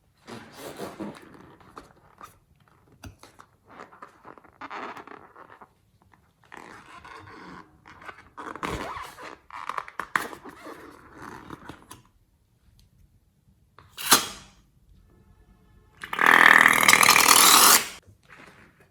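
Slime being squeezed and worked by hand: irregular wet squelches and crackles, then a sharp short burst about fourteen seconds in and a loud spell of rushing noise lasting about two seconds near the end.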